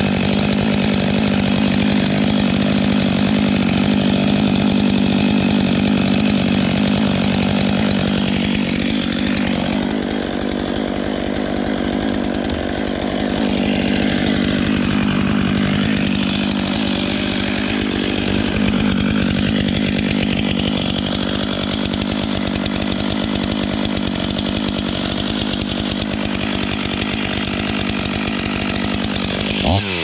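Stihl MS 500i chainsaw, a fuel-injected two-stroke, running at high revs as it cuts through a tree trunk in a felling cut. The pitch wavers somewhat in the middle as the load on the chain changes.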